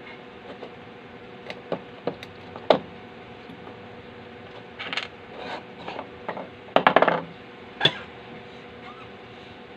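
Hands handling the sheet-metal case of an amplifier: scattered sharp metallic clicks and taps, with a short rattling clatter about seven seconds in.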